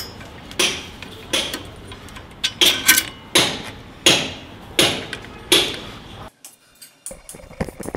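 Sharp knocks repeating roughly every 0.7 seconds, each with a short ringing tail. They stop about six seconds in, leaving only faint small clicks.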